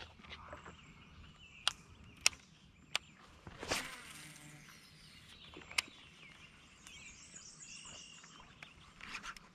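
Quiet lakeside ambience with faint insect buzzing and bird chirps, broken by a few sharp clicks and a brief whoosh about three and a half seconds in, from handling a fishing rod and reel in a kayak.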